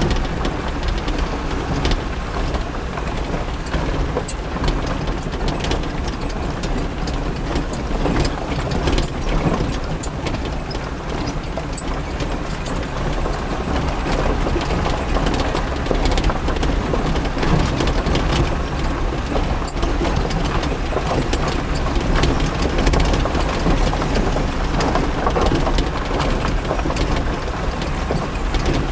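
A vehicle engine running steadily, with a constant low rumble and many small rattles and knocks over it.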